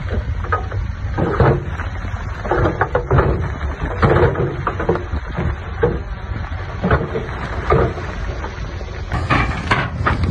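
Heavy diesel construction machinery at work: a steady low engine rumble with irregular knocks and clatter, as of stone and steel, several of them near the end.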